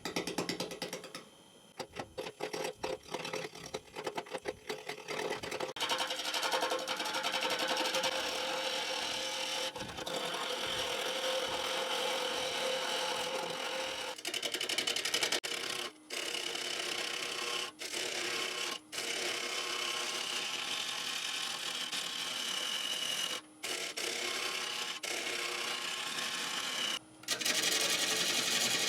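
A carbide cupped roughing tool cutting a square, very dry oak blank that spins on a wood lathe. Over the first few seconds it chatters rapidly as it strikes the corners, and then it settles into a steadier cut, stopping briefly a few times when the tool is lifted off.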